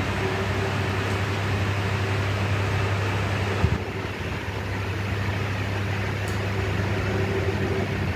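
Steady machine hum with airy noise, like a running fan or air conditioner: a strong low hum and a faint higher tone. A single knock comes a little past halfway, after which the hum drops slightly.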